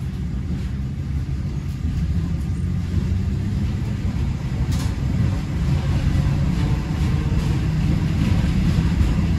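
Tram running with a steady low rumble that grows slowly louder.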